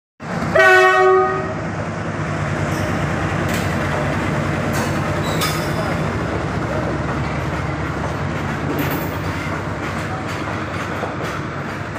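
A WDG4G diesel locomotive's horn blasts once for about a second near the start. It is followed by the steady rumble and clacking of the loaded goods wagons rolling past on the track.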